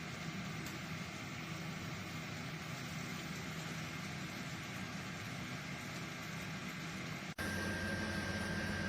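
Tower T17038 Xpress air fryer oven running while rotisserie cooking: a steady fan and motor hum with a faint whine. About seven seconds in, the sound cuts abruptly to a slightly louder take of the same kind of steady running noise, with a clearer high whine.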